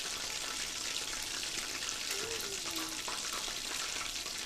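Chicken pieces deep-frying in hot oil: a steady sizzle with fine crackling and popping.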